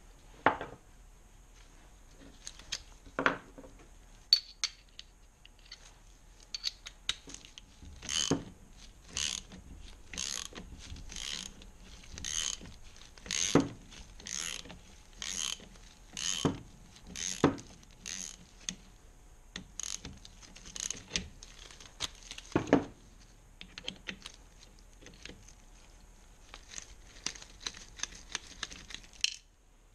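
Ratchet wrench clicking in a steady back-and-forth rhythm, about one stroke a second for around ten seconds, as a bolt is undone on a motorcycle engine's crankcase. There are a few metallic knocks of tools on the engine before and after, the loudest about 23 seconds in.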